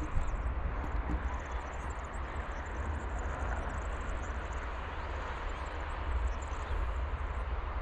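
Wind buffeting the microphone outdoors, a steady low rumble with a broad rushing, while high, rapid chirping trills on and off in the background.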